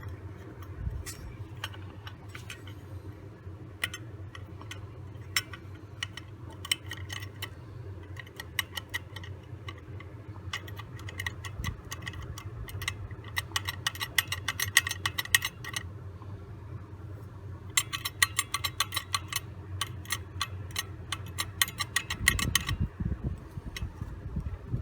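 Suzuki Address V100 scooter's two-stroke engine running steadily with a clattering rattle from its centrifugal clutch, coming and going in spells of rapid clicks; this clatter is the abnormal clutch noise. Near the end a deeper rumble sets in.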